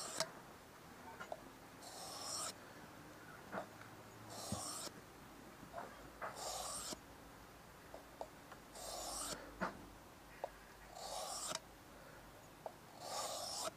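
Knife blade drawn along a wet 1000-grit waterstone in slow, even sharpening strokes: a faint scraping swish about every two seconds, with light clicks of the blade against the stone between strokes.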